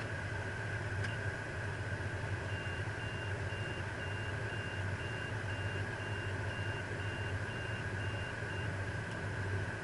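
Steady low engine hum with a steady higher tone, typical of a car ferry's machinery, and a run of short, evenly spaced electronic warning beeps, about two a second, starting a couple of seconds in and lasting some six seconds.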